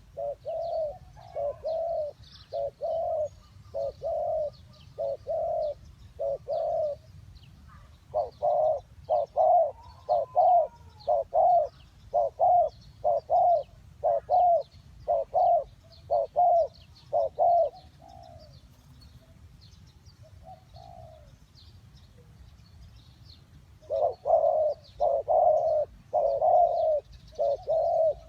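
Spotted doves cooing: runs of repeated low coo notes at about two a second, in bouts with a pause of several seconds in the middle. Faint high chirping of small birds runs underneath.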